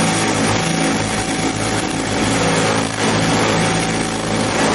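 Harbor Freight mini mill's spindle motor running steadily with a constant hum while an end mill takes a milling cut, cutting a radius on a bar as a rotary table is turned by hand into the cutter.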